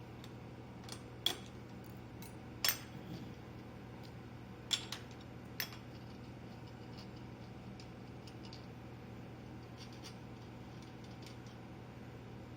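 Several sharp metal clinks and knocks in the first six seconds as steel parts and a hold-down plate are handled and set on the keyseater table. A steady low hum runs underneath.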